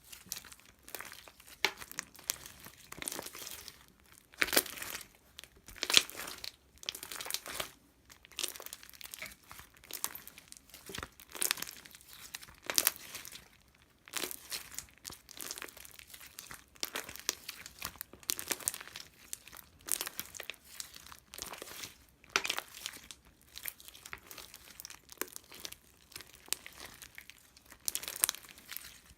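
Irregular crinkling and rustling of something being handled, in uneven bursts with a few louder crackles.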